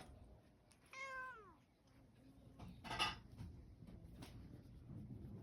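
Dilute calico cat meowing once, a single call falling in pitch about a second in. A brief sharp sound follows about two seconds later.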